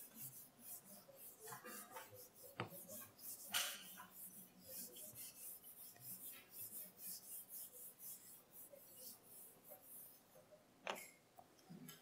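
Faint scratchy squeaks of a marker writing on a whiteboard, in many short strokes, with a few soft knocks.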